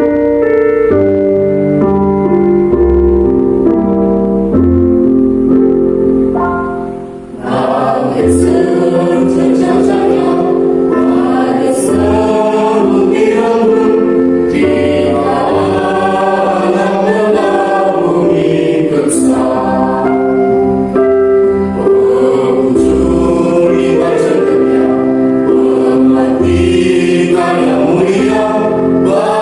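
Elementary-school children's choir singing with keyboard accompaniment. The keyboard plays alone for about the first seven seconds, then the voices come in together.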